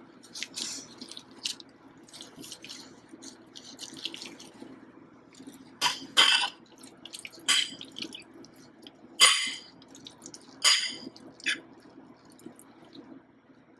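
Small wet clicks and taps of gloved hands working soft coxinha dough and metal spoons in a ceramic bowl of filling, with a few sharper clicks about six, nine and eleven seconds in, over a faint steady hum.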